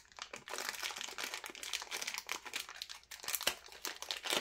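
Small clear plastic parts bag crinkling as it is handled, with an irregular crackle that grows louder near the end.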